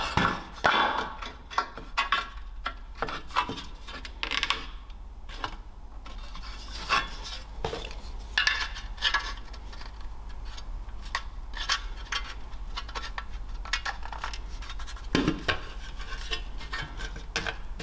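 Hard plastic 3D-printed brackets being handled and tried against a metal support bar: irregular clicks, knocks and scraping. They are a poor fit, being warped.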